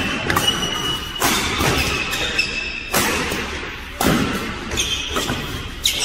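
Badminton rackets striking a shuttlecock back and forth in a fast doubles rally, a sharp crack about every second that echoes in a large hall, with sneakers squeaking on the court mat between hits.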